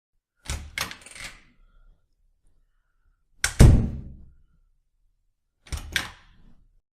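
Door opening and closing: a few sharp latch clicks, then a single loud, deep thud of the door about three and a half seconds in, then two more latch clicks near the end, each with a short room echo.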